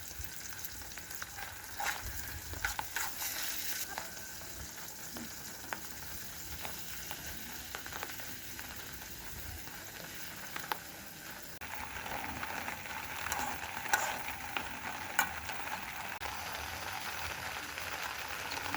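Food frying and sizzling in a pan, with scattered crackles and a few utensil clicks; the sizzle grows louder about twelve seconds in.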